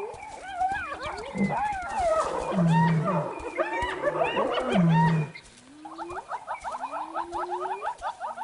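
A clan of spotted hyenas calling at a kill: overlapping squeals, whoops and yells for about five seconds. These give way to a fast run of giggling cackles over slow rising whoops.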